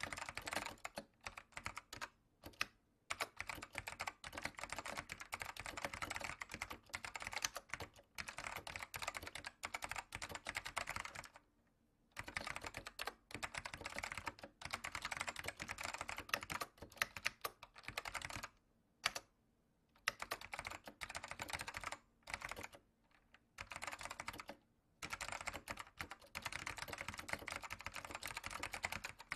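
Fast typing on a computer keyboard: dense runs of key clicks broken by short pauses, the longest about a second long, around a third of the way in and again about two-thirds through.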